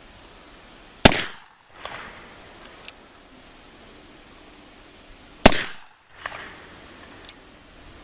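Two shots from a black powder percussion revolver, about four and a half seconds apart. Each is a sharp bang with a fainter echo following under a second later, and a short faint click comes about two seconds after each.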